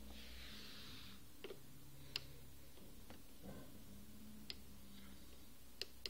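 About five faint, sharp clicks at irregular intervals over a low steady hum, with a soft hiss in the first second.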